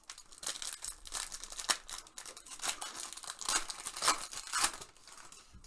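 Foil wrapper of an Upper Deck hockey card pack being torn open and crinkled, a quick run of sharp crackling rustles that stops about five seconds in.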